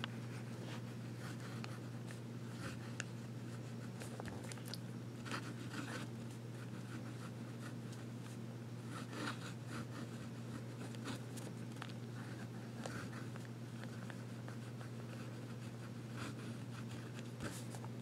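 Faint scratching of a fountain pen's medium nib moving across paper in short, irregular handwriting strokes, over a steady low hum.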